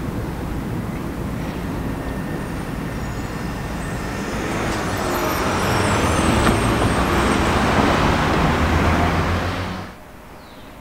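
Street traffic noise with a tram approaching over street track, the running noise building up over several seconds, with faint high squealing on top. It then drops away sharply near the end.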